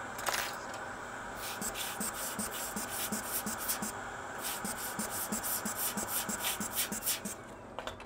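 Hot air rework station's blower hissing steadily while it cools down, cutting out near the end. Over it comes a run of quick scratching strokes from a tool working on the circuit board.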